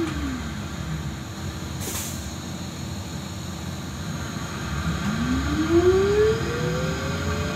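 Solaris Trolino 12 trolleybus's electric traction drive, heard from inside the cabin over a steady low rumble. Its whine falls in pitch as the bus slows at the start, a brief hiss comes about two seconds in, and the whine climbs again from about five seconds in as it accelerates.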